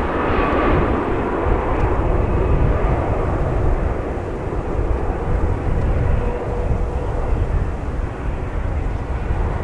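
Boeing 767-300 airliner's jet engines, a loud steady low rumble, as the airliner comes in to land.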